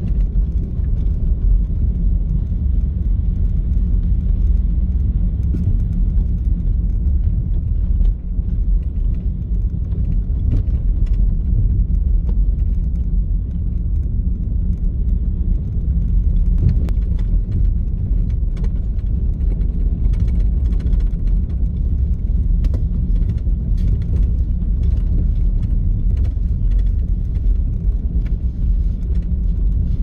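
Car driving at a steady pace: an even low rumble of engine and tyres on the road, with faint scattered ticks.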